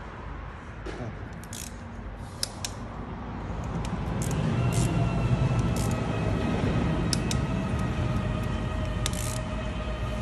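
Scattered metallic clicks and clinks of a torque wrench and socket on the bolts of a bare cylinder head. About four seconds in, a steady droning machine with a whine comes in and grows louder.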